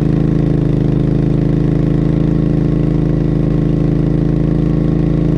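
Suzuki V-Strom motorcycle's V-twin engine running at a steady cruising speed, its pitch held even with no revving.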